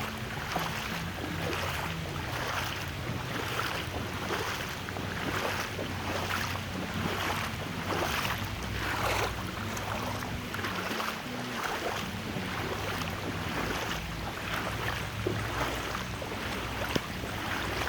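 Footsteps splashing through ankle-deep floodwater on a road, a little faster than one step a second, over a low steady hum.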